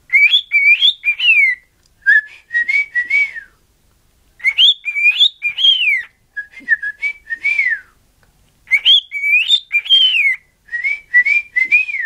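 Pet cockatiel whistling a tune it was taught. A rising-and-falling whistled phrase is followed by a lower, choppier one, and the pair repeats three times with short pauses between.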